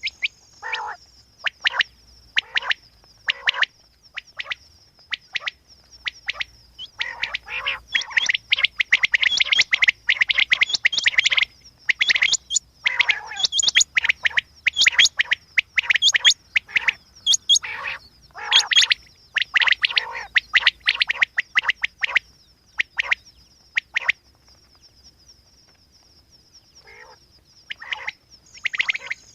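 Quail calling in quick series of short, sharp chirps, densest in the middle, with a pause of a few seconds near the end. A steady high-pitched tone runs underneath.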